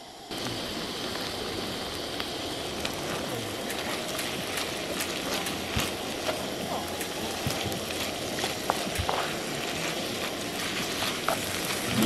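Spicy pork belly and small octopus frying in a wok: a steady sizzling hiss with scattered pops that starts abruptly just after the beginning.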